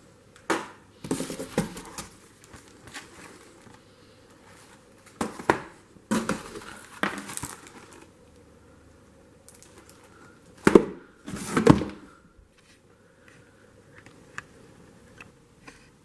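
Packaging being handled: crinkling and rustling with knocks and clunks as boxed items are moved, in three bursts, the loudest near the middle and about two-thirds of the way in.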